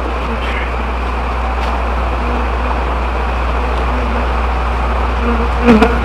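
A mass of loose honey bees buzzing in a steady drone as they pile up and regroup, with occasional louder buzzes passing close, over a constant low hum. A short louder sound comes near the end.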